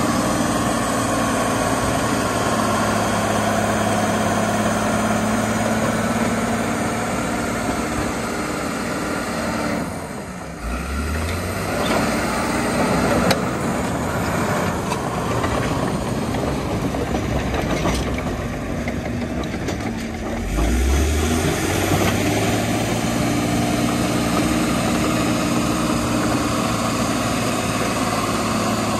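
The 1997 Dresser TD12-CXP crawler dozer's Cummins 5.9 inline-six diesel runs hard as the machine works the dirt. Twice, about a third and two thirds of the way through, the engine note dips and then climbs back up.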